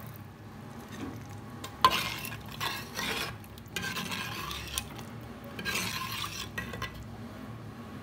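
Steel ladle stirring thick mutton gravy in a clay pot, working in the flour slurry to thicken it. A sharp clack of the ladle about two seconds in, then a few scraping, swishing strokes.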